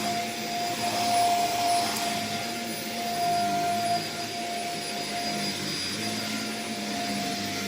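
Dyson vacuum cleaner running steadily with a constant high whine as it is pushed along the floor.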